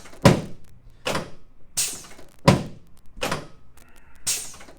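A series of about six sharp thuds, roughly one every three-quarters of a second, as a chiropractor works the patient's low back on the treatment table.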